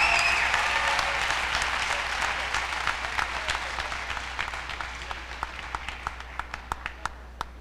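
Audience applauding, fading steadily and thinning into a few scattered claps that stop near the end.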